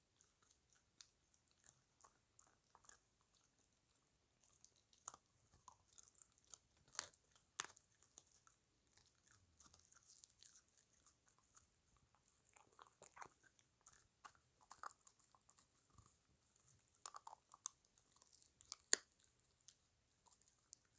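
A puppy chewing and crunching on a dried chicken foot, with irregular bites and sharp crunches of bone, a few louder crunches standing out.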